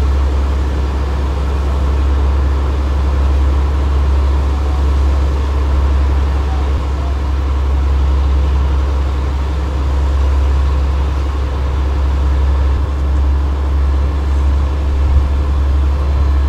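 Engine-driven water pumps on trucks running with a steady, unbroken low drone.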